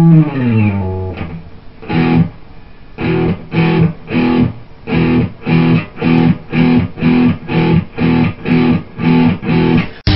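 Guitar playing: a held note that slides down in pitch, a single chord, then short chopped chords repeated about two and a half times a second.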